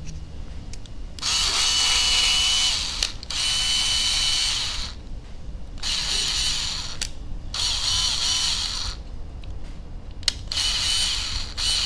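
Small electric screwdriver running in five short bursts of one to two seconds each, with a steady motor whine in each burst.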